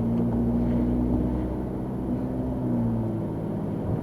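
Car driving along, heard from inside: a steady low engine hum with road rumble, its pitch shifting slightly now and then.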